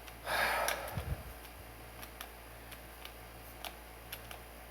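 Light handling noises: a short rustle near the start, a low thump about a second in, then a few faint, scattered clicks. The grinder is not running.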